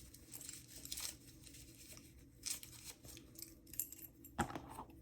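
Faint rustling and a few light clicks from a padlock and its key being handled while the key is tried in the lock, with a sharper click near the end.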